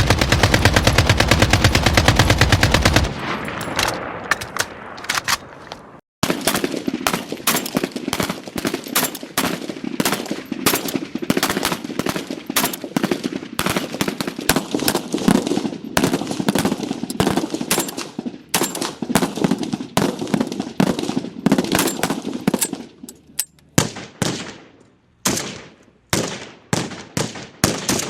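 Gunfire sound effects. A very rapid burst of automatic fire lasts about three seconds and trails off. After a short break comes a long stretch of continuous automatic fire, and near the end separate shots and short bursts, each with a ringing tail.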